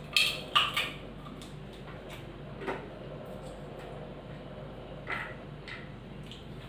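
Sounds of people eating rice by hand from steel plates and bowls: a cluster of short, sharp clicks and smacks in the first second, then a few fainter single ones, over a steady low hum.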